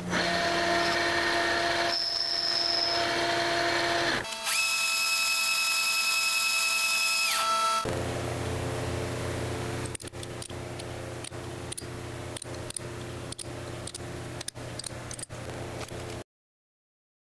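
Metal lathe running with a steady machine hum that changes abruptly: a higher-pitched whine for a few seconds in the middle, then the hum again with a quick run of sharp clicks. It cuts off to silence near the end.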